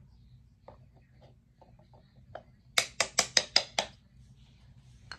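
Wooden toy hammer striking wooden tool-kit pieces: a quick run of six sharp taps about three seconds in, after a few faint clicks of wooden parts being handled.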